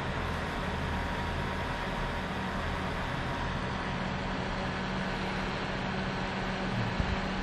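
A steady mechanical hum with a constant hiss, unchanging throughout.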